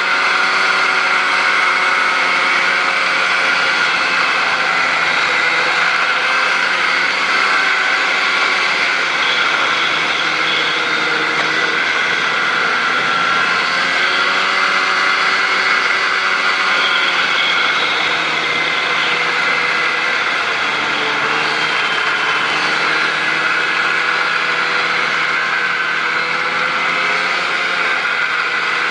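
Snowmobile engine running steadily under way along a trail, its pitch easing down a little about two-thirds of the way through and then picking back up.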